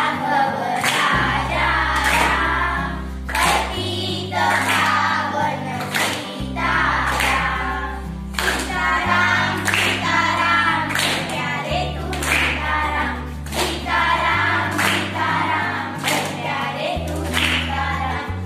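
A group of schoolgirls singing a song together in unison, clapping their hands in a steady rhythm about once a second. Low held accompaniment notes change pitch every couple of seconds underneath.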